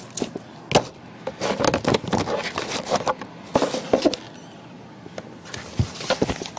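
Handling noise from a camera being set up close to the microphone: a sharp knock, then bouts of rustling, scraping and small clicks.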